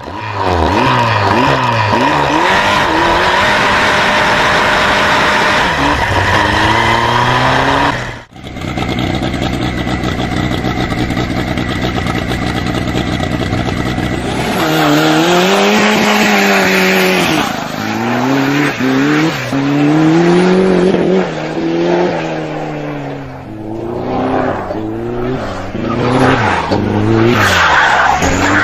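Go-kart fitted with a 500 hp 2.0-litre turbocharged car engine, running at high revs and shifting up, its pitch climbing and dropping with each gear. After a short break about eight seconds in, the engine revs up and down again and again in quick swings.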